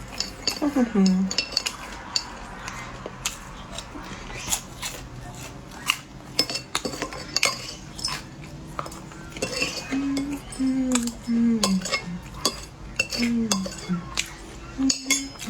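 Cutlery and dishes clinking in many sharp, irregular clicks while someone eats. Short hummed voice sounds come near the end.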